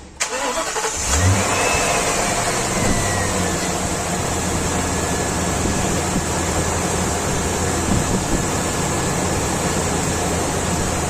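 Ford Excursion engine starting almost at once and settling into steady running, with a whine that rises and then eases down in the first few seconds. It is running on fuel pressure that stays around 10 PSI instead of the 35–45 PSI it should have, the sign of a failing fuel pump.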